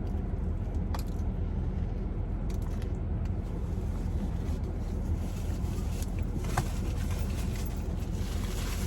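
Air conditioner running with a steady low hum, plus a couple of faint clicks.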